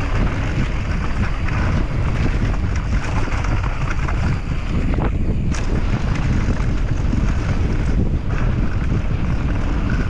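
Wind rushing over the microphone of a mountain bike's helmet or body camera while descending at speed, mixed with the rumble of knobby tyres on a dry dirt trail. A few sharp clicks from the bike rattling over bumps, one about halfway through.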